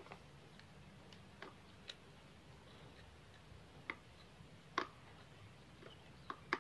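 A handful of faint, irregular clicks and light taps from a screwdriver and small metal parts as the carburetor of a Husqvarna 372XP chainsaw is put back together, the sharpest click nearly five seconds in.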